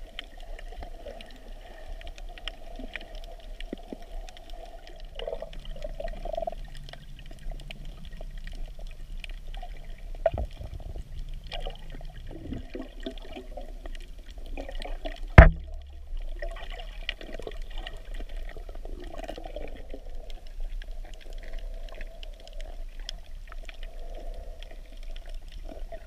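Muffled underwater water noise picked up by a camera below the surface, with scattered faint clicks and one sharp knock about fifteen seconds in.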